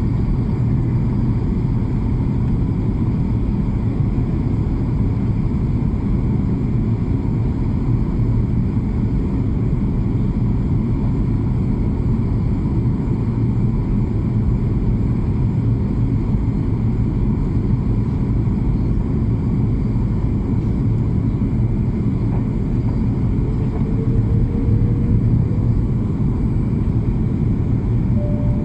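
Steady low rumble of an airplane in flight, its engine and airflow noise holding even with no change in pitch.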